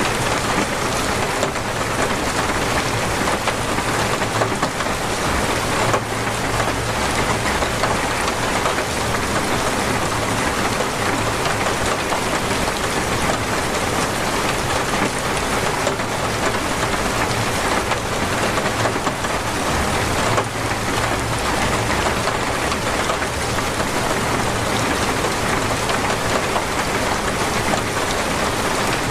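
Heavy, torrential rain falling in a steady dense hiss, drops pattering on surfaces.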